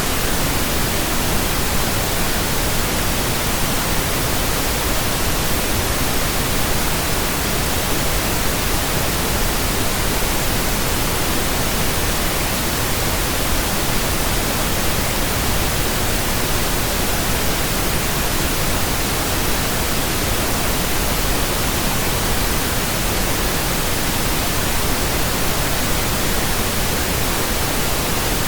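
Electronically generated pink noise: a steady, unchanging hiss spread evenly across all pitches, with no tones or breaks.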